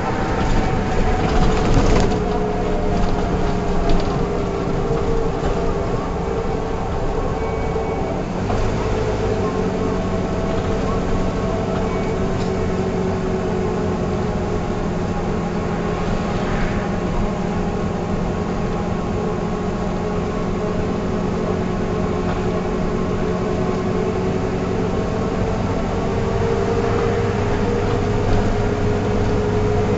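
Mercedes-Benz O305 city bus running, with a steady whine from the engine and drivetrain whose pitch dips slowly and then rises again. Rattles and knocks in the first couple of seconds, and a deeper hum joins about nine seconds in.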